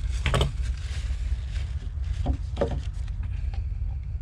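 Steady low rumble underneath, with a few brief scuffs of a gloved hand working epoxy into fiberglass cloth: one about a third of a second in and two just past two seconds.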